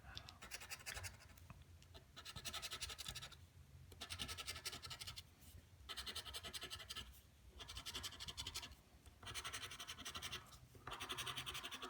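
Scratch-off lottery ticket being scratched, in about seven short bouts of rapid scraping with brief pauses between.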